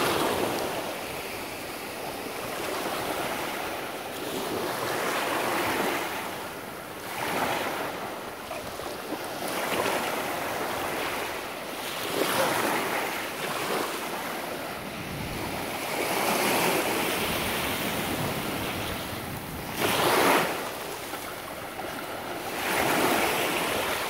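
Small surf waves washing up a sandy beach and sliding back, the hiss swelling and easing every few seconds, with one louder wash about twenty seconds in.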